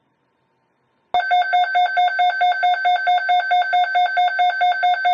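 Midland ER210 weather radio sounding its alert alarm, a rapid pulsing beep of about five beeps a second. It starts abruptly about a second in and signals an incoming NOAA weather alert, here a tornado watch.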